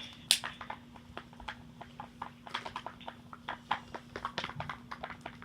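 Slime mixture of shaving cream and paint being stirred in a container: a quick, irregular run of light clicks and taps from the stirring, the sharpest just after the start, over a faint steady hum.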